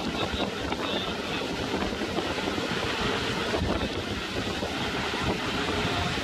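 Open passenger speedboat running fast on a river: steady engine noise mixed with the rush of water from the wake and wind buffeting the microphone.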